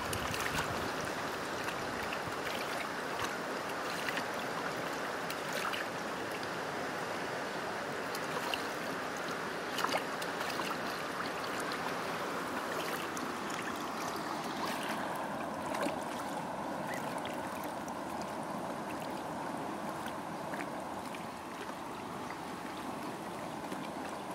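Shallow stream running steadily, with scattered short splashes as young geese bathe and dabble in the water.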